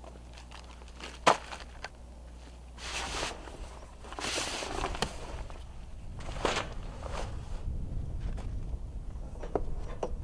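Footsteps on dry dirt, with a single sharp knock about a second in, then the rustle of a heavy canvas cover being pulled off a portable inverter generator and set down.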